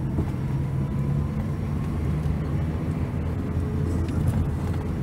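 Car running along a road heard from inside the cabin: a steady low engine and road hum.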